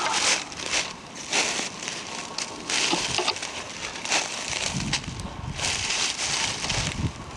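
Footsteps crunching and rustling through forest undergrowth, twigs and dry leaves crackling underfoot in an irregular series of short crunches, with a few dull thuds near the end.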